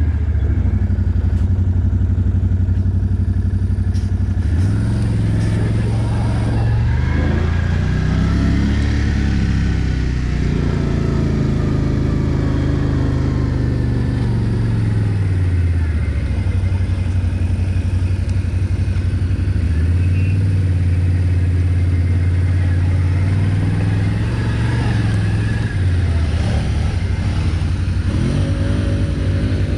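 ATV engine running while being ridden, its pitch rising and falling every few seconds as the throttle is opened and eased off.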